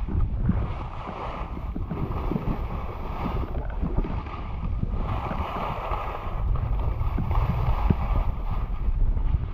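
Wind rumbling on the microphone of a 360 camera held out by a downhill skier, over the hiss and scrape of skis sliding on packed snow, swelling and easing every second or two.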